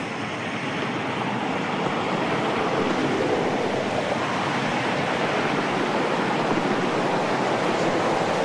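Steady rushing noise on a camcorder microphone, growing a little louder over the first few seconds.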